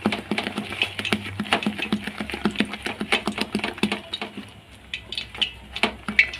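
Besan (gram-flour) batter being beaten by hand in a plastic bowl: a quick, uneven run of wet slaps, several a second. The batter is being whipped light before the fritters are fried.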